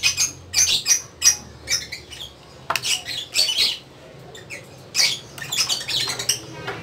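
Pet birds squawking and chirping in short, irregular calls, over a low steady hum.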